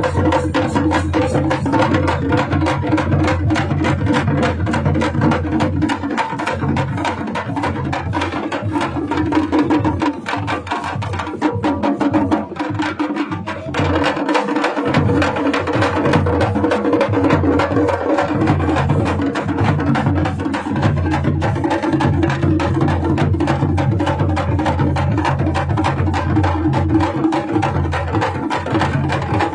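A group of parai frame drums beaten loudly with sticks in a fast, dense thappattam rhythm, the drumheads ringing under closely spaced strokes.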